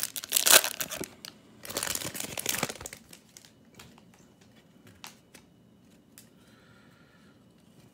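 Plastic foil trading-card pack wrapper crinkling as it is torn open by hand, in two loud bursts during the first three seconds, followed by a few faint clicks.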